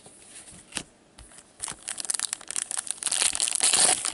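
Foil trading-card pack wrapper being torn open and crinkled by gloved hands: a single tap under a second in, then dense crinkling from about halfway through, growing louder toward the end.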